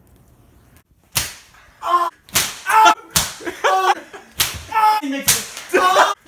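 A run of sharp slaps starting about a second in, five or six in all, each followed by loud yelling voices.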